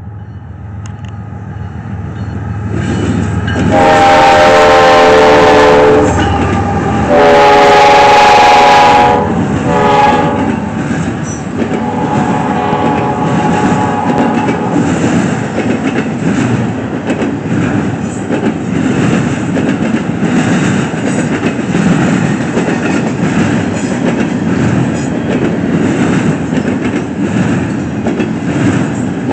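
A GE ES44C4 diesel locomotive's K3LP air horn sounds two long blasts, a short one, then a fainter, lower long one as it goes by. Then a fast double-stack intermodal train passes close, with locomotive rumble and a steady clatter of wagon wheels on the rails.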